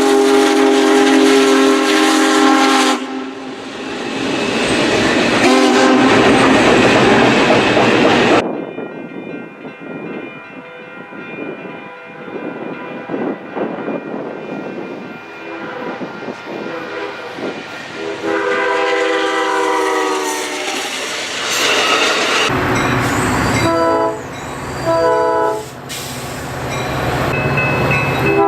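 Train horns sounding over the rumble and rail clatter of passing trains, in several separate clips. A long horn chord opens, then passing-train noise; another long blast comes later, followed by a few short blasts near the end.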